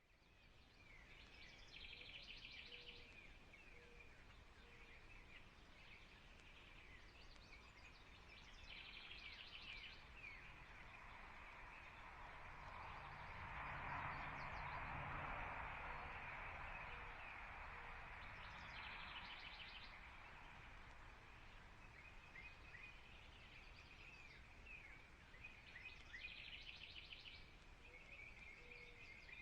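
Songbirds singing faintly. One repeats a short phrase ending in a fast trill about every seven seconds, among scattered chirps, over a soft background hiss that swells in the middle.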